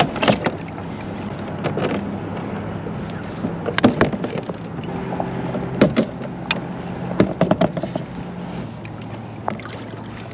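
Knocks and clatter of a paddle and gear against the plastic hull of a fishing kayak as the angler moves about and sits down. Under it runs a steady low motor hum that stops about three-quarters of the way through.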